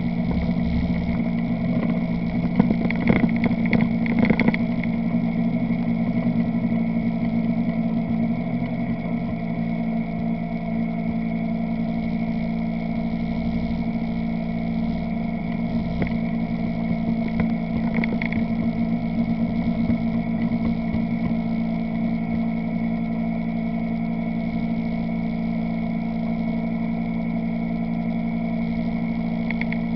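ATV engine running close by at a steady speed, with a cluster of short rattles and knocks about three to four seconds in.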